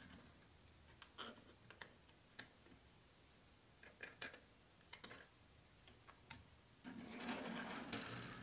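Faint, scattered clicks and taps of plastic building-block models being handled and set down on a tabletop, followed near the end by a longer rustling, rolling noise of about a second and a half.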